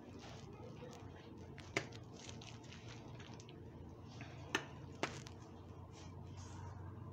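Faint room noise with three short, sharp clicks, about two seconds in and again twice close together a little after four and a half seconds.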